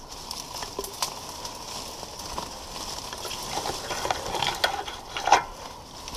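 Leaves and twigs rustling and crackling as hands push through dense branches, with irregular small snaps and one sharp crack about five seconds in.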